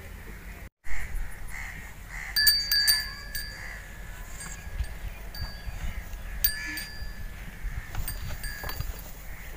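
A small metal bell tinkles again and again, sounding the same ringing notes each time, from about two seconds in. Just before that, about a second in, the sound drops out to silence for a moment.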